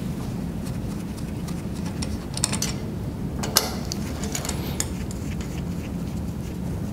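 Small clicks and light metallic taps as hydraulic tube fittings and their nuts are handled and threaded back onto the pump's tubing, the sharpest about two and a half and three and a half seconds in, over a steady low hum.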